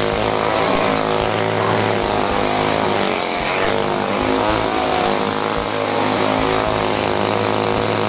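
Two-stroke chainsaw engine running steadily while being juggled, its pitch wavering a little.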